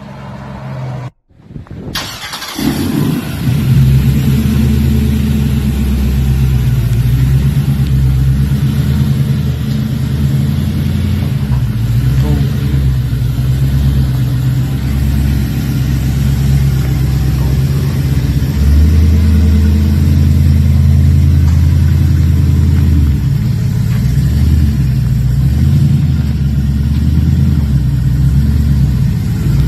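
Box Chevy Caprice's engine starting about two seconds in, then running loud and steady through its exhaust with a rapid low pulsing beat.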